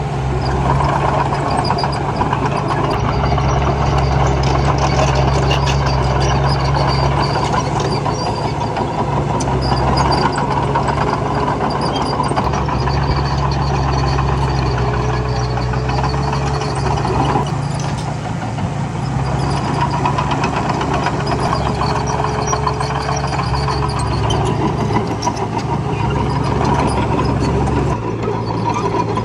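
Diesel engine of heavy earthmoving equipment running continuously, its load rising and falling, with a faint whine coming and going.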